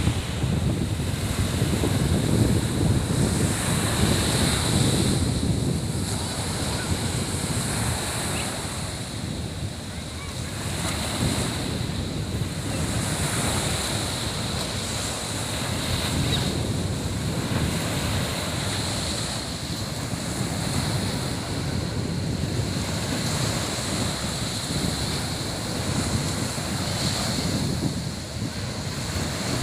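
Sea surf washing onto a beach, rising and falling every few seconds, with wind buffeting the microphone in a low rumble.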